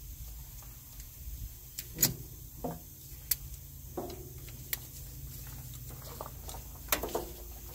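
Hand tools and metal parts clinking and knocking as they are handled, about half a dozen sharp, irregular knocks, over a low steady hum.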